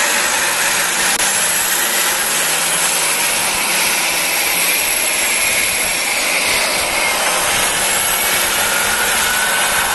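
A heavy-haul truck running under load as it hauls an excavator on a lowboy trailer: a steady, loud rushing engine and road noise with a faint wavering whine.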